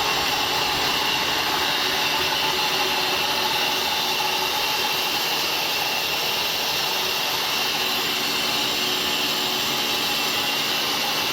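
Sawmill band saw running, a steady high-pitched hiss and whine that holds even.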